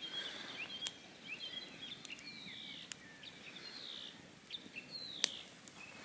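Small birds chirping, with short rising and falling calls throughout. Over them come a few sharp pops from the crackling campfire, the loudest a little after five seconds in.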